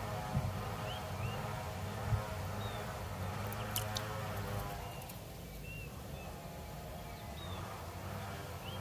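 A steady low engine drone that fades a little past the middle and comes back, with short high bird chirps every second or two and a couple of faint clicks about four seconds in.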